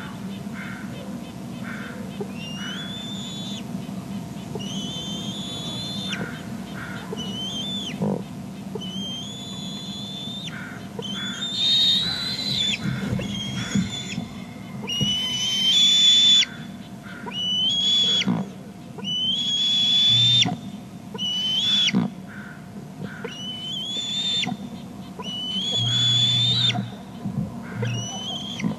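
Juvenile bald eagle giving a series of high, whistled calls, each rising and then held briefly, one every second or two and louder in the second half: food-begging calls as it heads down to the nest to be fed.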